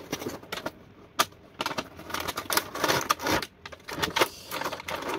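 Cardboard toy box and the plastic bubble-camera toy inside being opened and handled: an irregular run of short clicks, rattles and rustles, with one sharp click about a second in.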